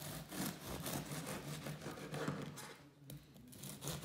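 Bread knife sawing through the firm crust of a freshly baked wheaten loaf on a wooden board: a crunch of quick back-and-forth strokes, with a short pause about three seconds in as the slice comes away before the next cut starts. The crisp crunch is the sign of a well-baked, crusty loaf.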